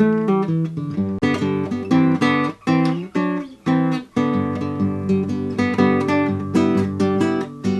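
Guitar theme music: a fast run of plucked notes mixed with strummed chords.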